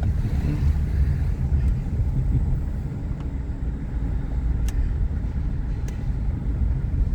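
Car cabin noise while driving slowly: a steady low rumble of engine and tyres on the road.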